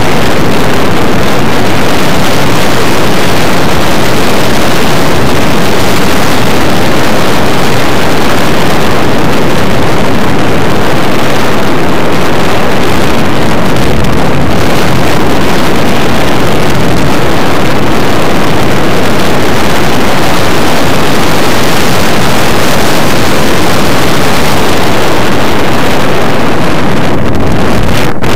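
Loud, steady rush of air buffeting the microphone of a camera mounted on a hang glider's wing in flight, with no engine or other pitched sound. The hiss thins out for a moment near the end.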